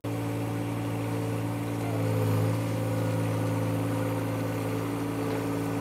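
John Deere compact tractor's three-cylinder diesel engine running at a steady speed, swelling slightly about two seconds in.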